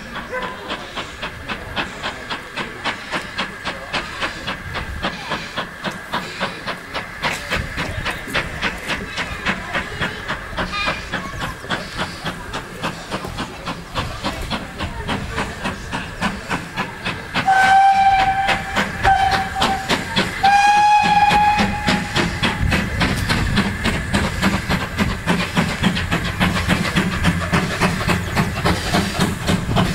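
BR Ivatt Class 2MT steam tank locomotive approaching, with a fast, steady beat throughout. Its steam whistle sounds about two-thirds of the way in, in two blasts, the second longer. The beat grows louder and heavier near the end as the engine nears.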